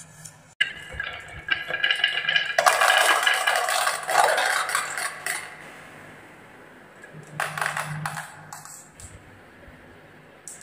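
Glass marbles rolling and clattering down a HABA wooden zigzag marble run, clicking against the wood and against each other. The clicks come thick and fast for about five seconds, with a shorter burst of clicks about seven seconds in.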